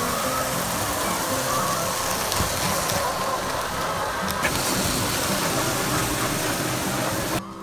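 Motorised chicken feed cart running along a layer-cage trough, with feed pouring from its chute into the plastic trough: a steady, even hiss and machine noise that stops abruptly near the end.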